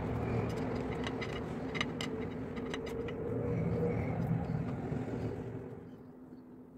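A plastic spatula scraping and tapping against a china plate in a run of sharp clicks while the halva is pressed flat. Under it is a steady low machine hum that dies down about six seconds in.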